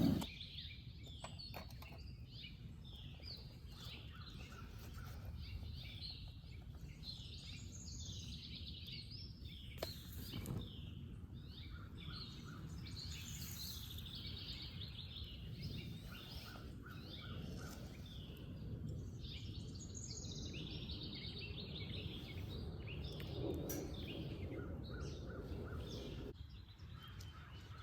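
Small birds chirping and singing, with many short overlapping calls throughout, over a faint low rumble.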